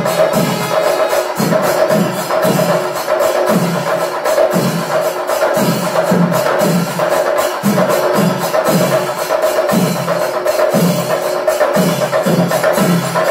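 Chenda melam: a large ensemble of chenda drums beaten with curved sticks, playing a steady, dense rhythm. Deep strokes fall about twice a second under rapid sharp stick and cymbal hits.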